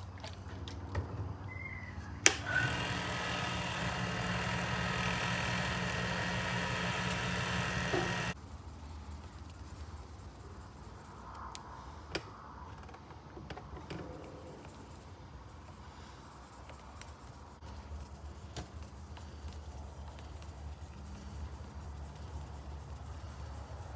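Pen lathe motor running with a steady hum while the resin pen blank is sanded with a micro-mesh pad. The hum starts with a click about two seconds in and cuts off abruptly about eight seconds in, leaving a faint low hum with a few light clicks.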